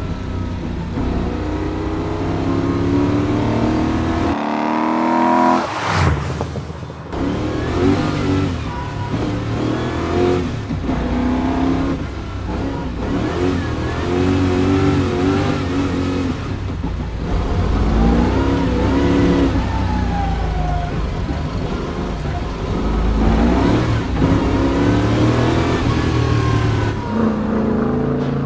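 TVR Griffith 400's Ford 289 V8 heard from inside the cabin, accelerating hard, its pitch rising through the revs again and again. Brief lifts and downshifts come between the climbs, the sharpest dip about six seconds in.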